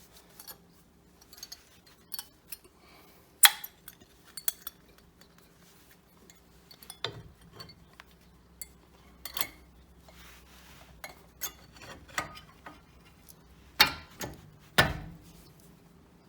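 Irregular metallic clinks and taps of brake pads and their spring retaining plates being fitted back into a front brake caliper, with a few louder knocks among them.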